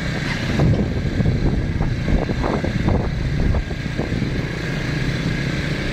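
Motorcycle engine running steadily while riding over loose sand.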